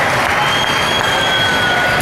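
Spectators and players clapping and cheering at the end of a volleyball point: a steady din of many voices and hands in an echoing gym.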